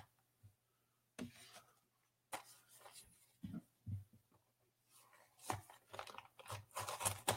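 Blind-box packaging being handled and opened, with faint scattered rustles, crinkles and tearing. They come closer together in the last couple of seconds.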